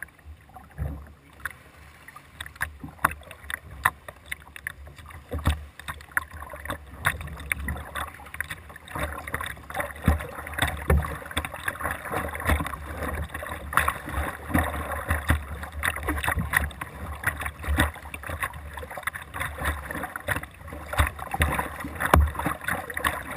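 Double-bladed kayak paddle stroking through the water, with a steady run of splashes and drips that gets busier and louder about eight seconds in.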